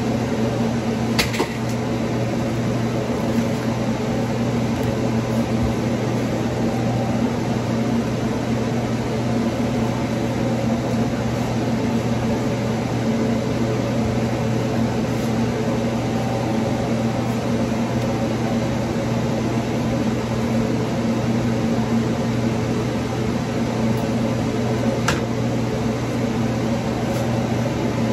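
Steady mechanical hum of a running motor, with a light click about a second in and another near the end.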